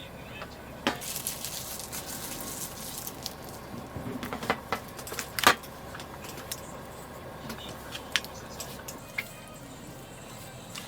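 Scattered sharp clicks and knocks of small objects being handled, with a brief rustle early on. The loudest click comes about halfway through.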